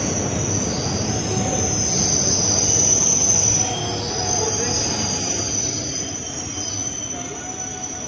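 Nakaha Jungle Intercity Express coach running slowly into a station, with a steady high-pitched squeal from the wheels and brakes over the rumble of the running gear. The rumble fades over the second half as the train slows to a stop.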